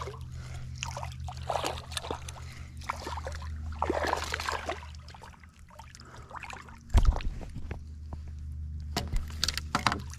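Water splashing and sloshing beside a kayak as a hooked ladyfish thrashes at the surface while being reeled in, over a steady low hum. A loud thump about seven seconds in, then a few sharp clicks.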